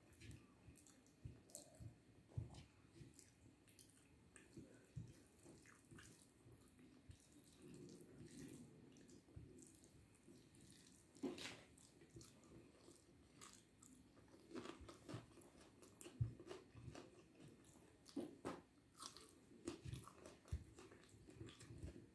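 Faint eating sounds of someone eating rice and egg curry by hand: chewing with irregular small mouth clicks and smacks.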